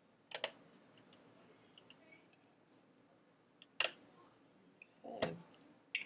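Small screwdriver and screws clicking against an iBook G4's metal top shield as it is screwed down: a quick double click near the start, a sharp click about four seconds in, then a duller knock and a last click near the end.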